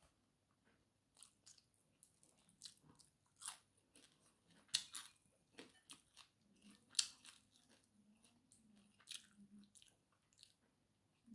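Close-miked eating: a person chewing a mouthful of rice and fish eaten by hand, with scattered sharp crunches and mouth clicks, the loudest about five and seven seconds in.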